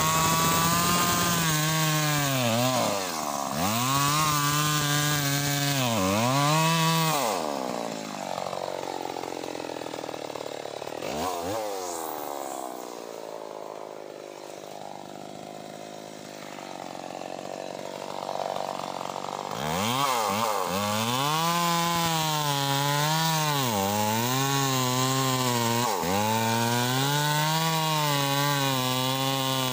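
Two-stroke Stihl chainsaw cutting into a teak trunk at its base, the engine revving up and sagging again and again under load. It drops to a slower, quieter idle for about ten seconds in the middle, then revs up and cuts again.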